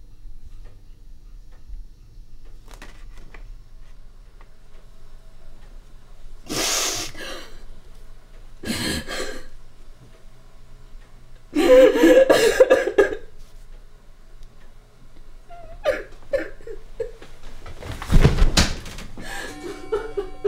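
A woman crying: several bursts of sobbing and gasping breaths, the loudest about halfway through. Music comes in near the end.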